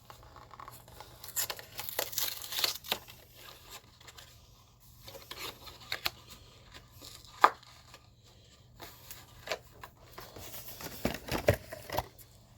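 Cadbury Creme Egg packaging being torn and crinkled open by hand, in irregular bursts of crackling with a few sharp clicks.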